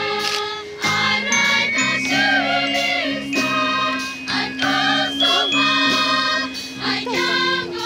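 Live high school wind band playing, brass and saxophones holding sustained chords that change every second or so.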